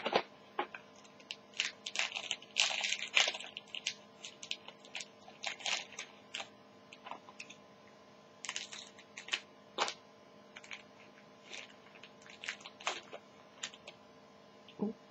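Trading cards and their packaging being handled: irregular crinkles, rustles and clicks, busiest in the first few seconds and again about two-thirds of the way through.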